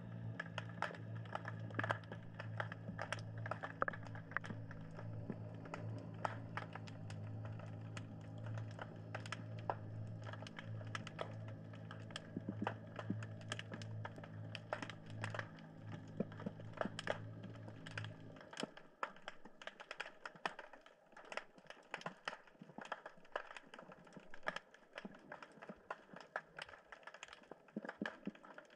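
Underwater crackle of snapping shrimp: dense, irregular clicks. A steady low hum runs beneath it and cuts off about two-thirds of the way in.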